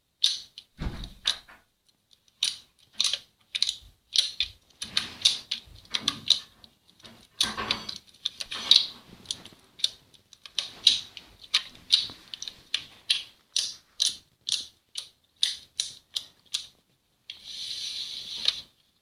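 Slime being squeezed and poked in a slime ASMR video: an irregular run of sharp clicks and pops, several a second, with a longer crackling squish near the end.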